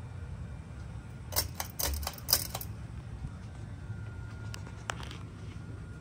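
Emerson ceiling fan running with a steady low hum. A quick run of sharp clicks comes about a second and a half in, and two more single clicks come near the five-second mark.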